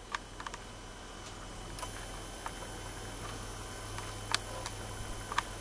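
Quiet indoor room tone: a steady low hum, a faint high whine coming in about two seconds in, and a handful of faint, scattered clicks.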